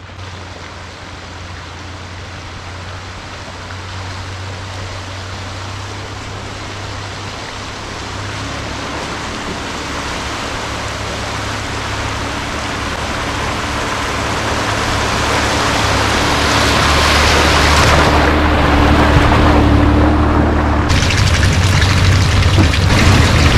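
Toyota Land Cruiser 80 series' straight-six engine running under a broad rushing noise, both growing steadily louder throughout.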